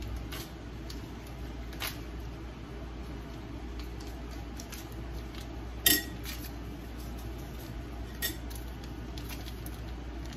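A few light clinks of metal utensils against cookware, the loudest about six seconds in with a short ringing tone, a smaller one about two seconds later, over a steady low background hum.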